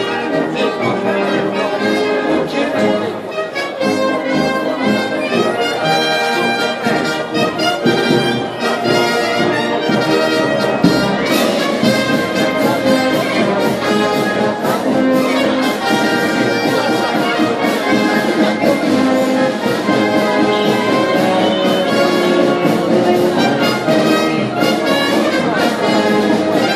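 Brass band playing processional music, with loud, sustained brass notes throughout.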